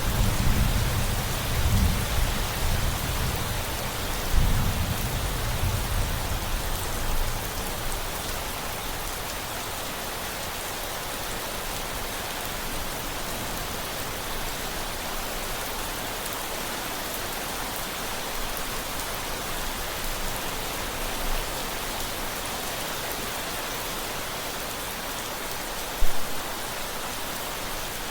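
Steady rain hissing, with a deep roll of thunder rumbling through the first several seconds and then dying away. A single short thump sounds near the end.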